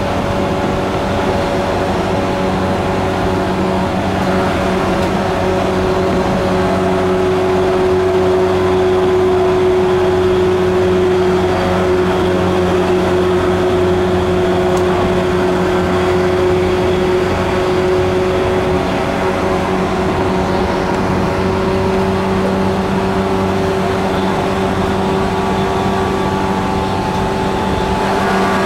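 MT54 traction motors of a JR 185 series electric train growling at a steady pitch as the train cruises at speed, heard inside the motor car, over the rumble of wheels on the rails.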